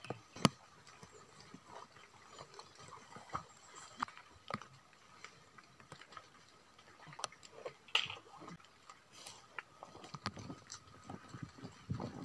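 Footsteps crunching through dry grass and twigs on a hillside: scattered, irregular snaps and rustles, with one sharp snap about half a second in and denser rustling near the end.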